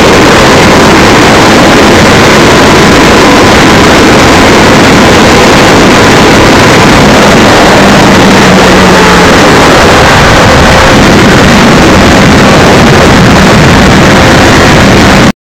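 Motorcycle riding at speed, heard from a camera on the moving bike: heavy wind rushing over the microphone over a steady engine note. It cuts off suddenly near the end.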